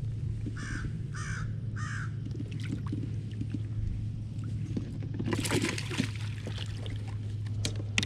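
A crow cawing three times in quick succession. About five seconds in, a brief splash as the hooked fish thrashes at the surface beside the kayak.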